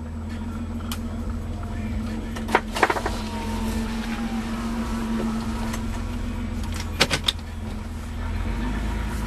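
Mitsubishi Montero 3.0 V6 engine idling steadily, with a few sharp clicks about two and a half seconds in, around three seconds, and again near seven seconds.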